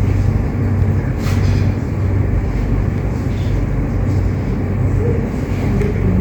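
Steady low hum and rumble of background noise, with one brief click about a second in.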